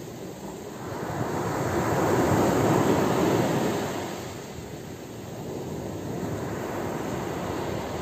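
Ocean surf breaking and washing up a pebble beach. The wash swells about a second in, peaks near the middle and dies back, then a smaller wave rises again near the end.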